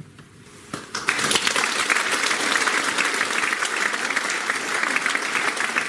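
Theatre audience applauding, the clapping breaking out about a second in and going on steadily.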